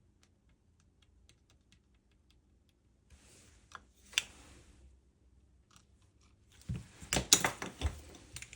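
Small tools handled on a repair bench: scattered light clicks, then a denser run of clicks and scrapes over a short hiss near the end.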